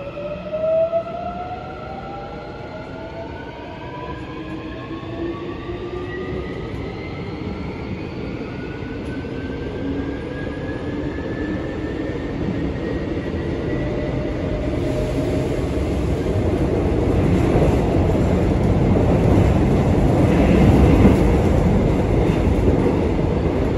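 Incheon Line 1 subway train heard from inside the car as it picks up speed. The electric traction motors give a whine of several tones rising steadily in pitch, and the rumble and hiss of wheels on rail grow louder with speed. There is a brief louder knock about a second in.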